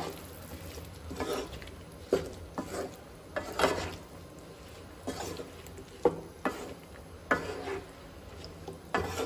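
Wooden spatula stirring brinjal wedges and potato slices through thick masala gravy in a coated frying pan: irregular wet scrapes and soft knocks against the pan, about one a second.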